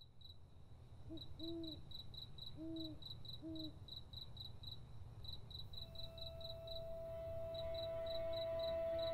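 Night ambience of crickets chirping steadily, several chirps a second, with an owl hooting four times in the first few seconds. A held, sustained music note comes in about six seconds in, over a low steady rumble.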